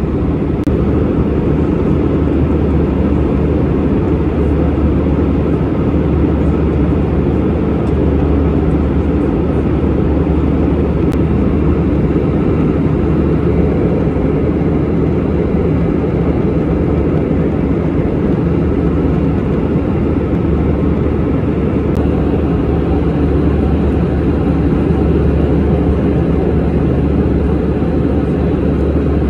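Steady cabin roar of an Airbus A320-200 in flight, heard from inside the economy cabin: engine and airflow noise, deep and unchanging.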